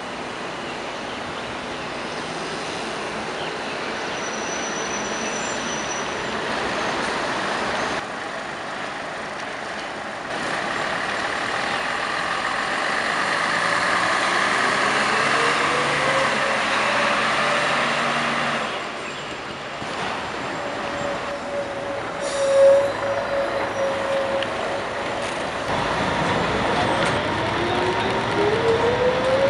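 Scania L113CRL city bus with its Scania DSC11 diesel engine, running and pulling away, its engine note rising as it accelerates, in a few short cuts. Near the end the run is heard from inside the passenger saloon.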